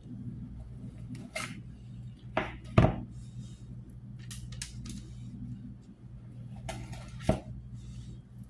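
Kitchen utensils clinking and tapping as cookie dough is spooned and scraped off a metal spoon and spatula onto a parchment-lined baking tray. There are a handful of short sharp knocks, the loudest about three seconds in, over a steady low hum.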